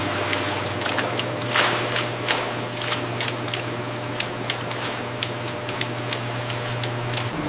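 Processing-line conveyor carrying sliced sweet potatoes, running with a steady machine hum and irregular light clicks and taps. The hum cuts off suddenly near the end.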